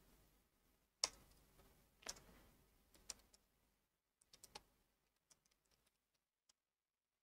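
Faint, scattered computer keyboard key clicks, about one a second, against near silence.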